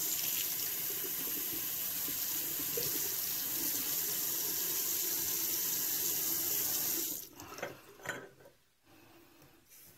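Bathroom sink tap running steadily, shut off about seven seconds in, followed by a few small splashes of water.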